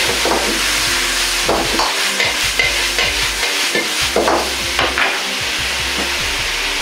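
Taro pieces sizzling in a wok over a strong gas flame while a metal ladle stirs and tosses them, with repeated scrapes and knocks of the ladle against the wok. The sauce is nearly cooked off and sesame oil has just gone in.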